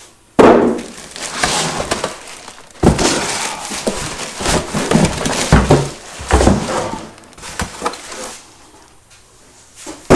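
Unpacking and handling noise: packing material and cardboard crinkling and scraping, with clicks and a few deep knocks.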